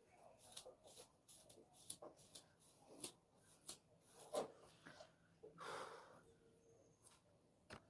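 Near silence: room tone with a few faint, scattered small clicks and a soft rustle about two-thirds of the way through.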